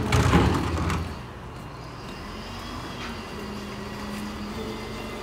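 A brief loud rush of noise in the first second, then a vehicle engine idling with a steady low hum.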